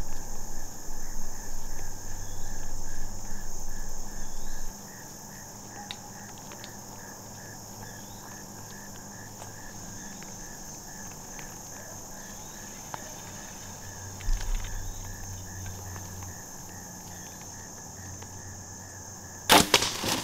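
Crickets and other insects chirping steadily, with a low rumble for the first few seconds. Near the end comes one sharp, loud crack of a compound bow loosing an arrow that strikes a deer.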